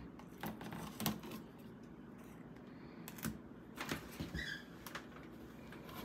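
Flathead screwdriver prying and scraping at a plastic light-switch cover plate that has been painted to the wall: scattered small clicks and scrapes as the plate works loose.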